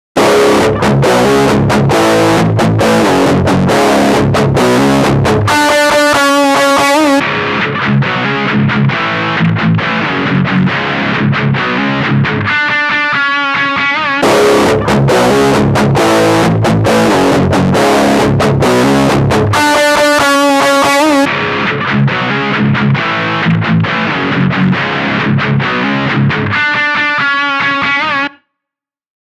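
Distorted electric guitar riff played through mini guitar amps (an Orange Crush Mini and a Boss Katana Mini): chugging chords then a run of higher single notes, repeated four times, with the tone switching between a brighter and a darker sound on each pass. It cuts off abruptly near the end.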